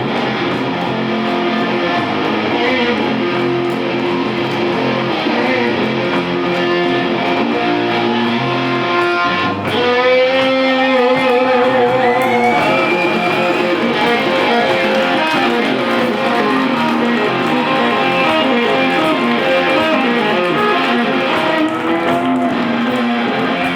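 Live blues played on electric guitar with the band: an instrumental passage with no singing. About ten seconds in there is a wavering, bent lead note, followed by a note that slides up.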